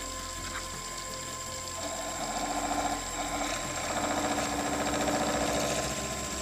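Wood lathe running with a hand-held chisel cutting into a small spinning wooden top, shaping its point where it will be parted off. The cutting rasps in two spells, from about two seconds in and again from about three seconds to near the end, over the lathe's steady motor hum.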